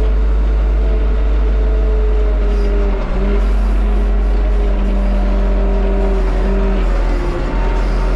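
Tractor engine running steadily, heard inside the closed cab: a deep rumble with a steady whine over it, the pitch dipping briefly about three seconds in and again near the end.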